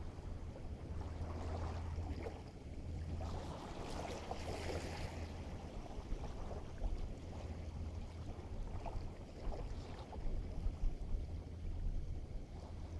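Outdoor wind and water noise over a steady low hum, with a louder rush of hiss lasting about two seconds, starting a little over three seconds in.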